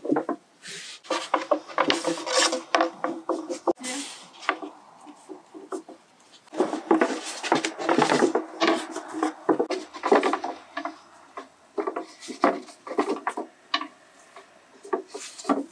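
A wooden rolling pin rubbing and knocking as it rolls thin dough out on a wooden board, in repeated bursts with short pauses between strokes.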